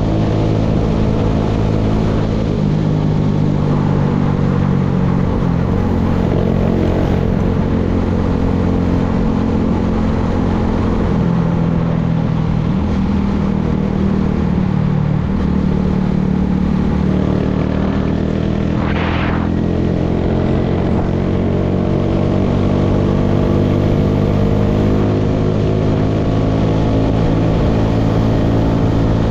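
Tractor engine running steadily while working a hay baler, its pitch shifting slightly a few times. A brief higher-pitched sound cuts in about two-thirds of the way through.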